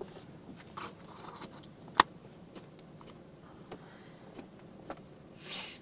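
Faint ticks and rustles inside a car's cabin, with one sharp click about two seconds in and a brief rustle near the end.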